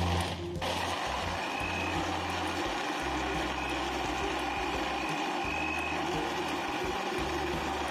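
Electric countertop blender running at full speed, blending an ice drink: a steady, even whir that starts about half a second in.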